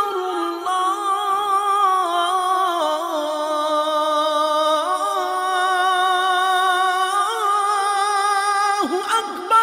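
A cappella devotional chanting by a single voice, holding long notes that waver and slide slowly in pitch, with a brief dip in pitch near the end.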